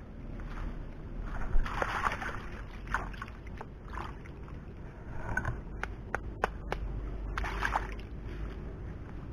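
Hands splashing and sloshing in shallow muddy water in irregular bursts, with a few sharp clicks about six seconds in.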